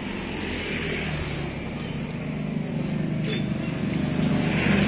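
A Kia Carens 1.8 petrol engine idling steadily, a low hum that grows gradually louder.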